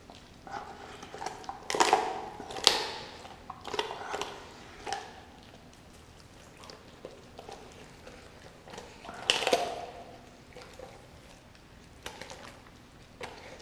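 A Doberman chewing and tearing at a whole raw turkey: wet ripping and crunching in irregular bursts, loudest about two seconds in and again about nine seconds in, with smaller clicks between.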